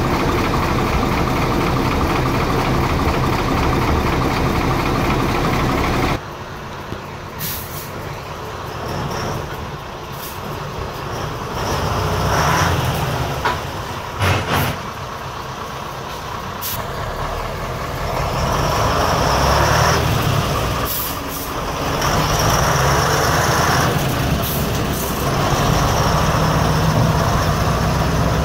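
The twin-turbo air-cooled V8 diesel of a 1988 Iveco 260.30 6x6 tipper truck running steadily up close. After a sudden change about six seconds in, the truck drives off, its engine revving up in several pulls, with short sharp hisses of the air brakes.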